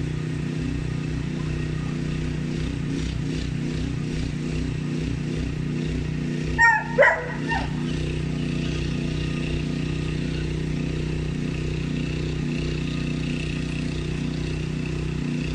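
A Belgian Malinois gives two or three short, loud yips about seven seconds in, over a steady low hum.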